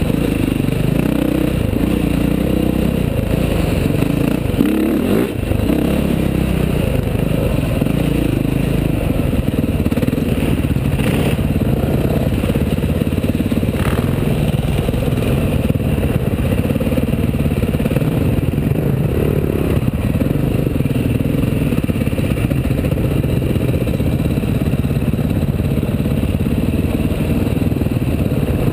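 KTM dirt bike engine running hard along a forest trail, the throttle rising and falling constantly as the rider works through the terrain, heard on board the bike.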